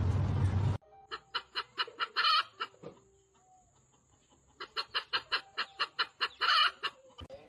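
A loud, steady noise cuts off under a second in. Then an animal calls in two bouts of rapid, evenly repeated calls, about six a second, each ending in one longer, louder call.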